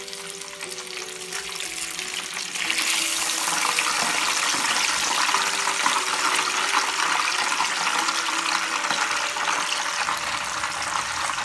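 Panko-breaded chicken cutlets deep-frying in hot oil in a shallow pan: a steady hiss of sizzling oil that gets louder about three seconds in.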